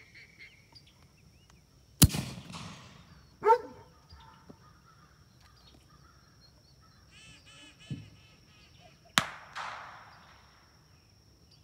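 Two sharp bangs, about seven seconds apart, each trailing off in an echo, with a shorter loud knock between them and a brief run of honk-like calls shortly before the second bang.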